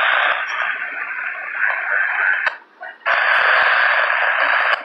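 Radio static from a receiver in two hard-edged bursts. The hiss cuts off abruptly about two and a half seconds in, then switches back on half a second later and stops again near the end.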